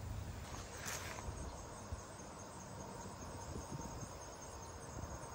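Crickets chirping in a steady high trill, with a brief swish about a second in.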